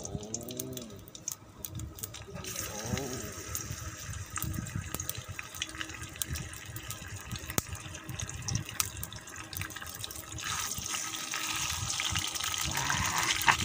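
Spiced chicken pieces sizzling in hot oil in a metal wok. The frying hiss starts about two and a half seconds in, with scattered pops, and grows louder from about ten seconds in as more pieces go into the oil.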